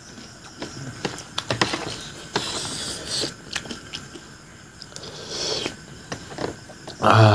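Close-miked mouth sounds of eating pani puri: crisp crunching and chewing of the hollow fried shells, with wet slurping of the spiced water twice. A short, loud voiced sound near the end.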